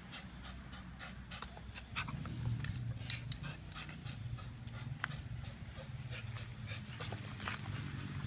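Pit bull-type dog panting and growling low while hanging by its jaws from a tire on a spring pole. The low sound swells about two seconds in, with scattered light clicks throughout.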